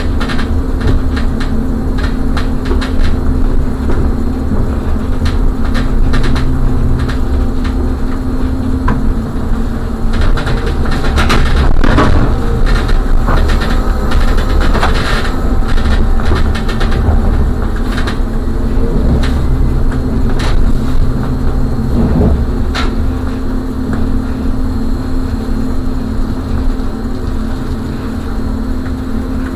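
Trolleybus moving slowly, heard from inside the cab: a steady hum over a low running rumble, with scattered clicks and rattles that cluster around the middle.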